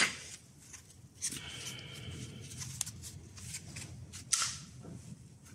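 Scooter clutch and transmission parts handled by hand on a workbench: scattered light clicks and knocks of metal parts, with a brief faint ringing whirr a little over a second in.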